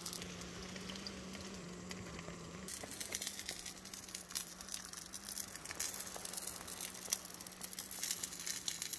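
Burgers sizzling faintly in a frying pan on a small gas camping stove. About three seconds in this gives way to crinkly rustling and ticking of nylon hammock and tarp fabric being handled.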